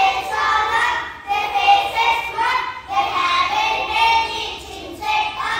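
A group of young children singing together in unison, in short phrases of held notes.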